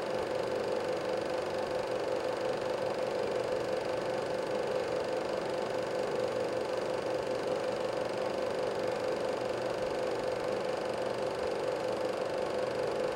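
Chinon SP-330MV Super 8 sound projector running with film going through it: a steady mechanical whirr from its motor, fan and film-advance mechanism.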